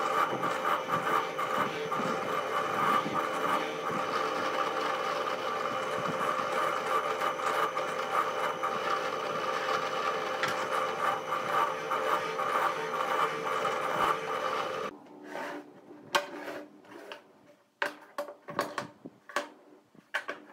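Bench drill press motor running steadily while holes are drilled into small wooden blocks. About fifteen seconds in it cuts off suddenly, followed by a series of light knocks of wooden blocks being set down on a wooden workbench.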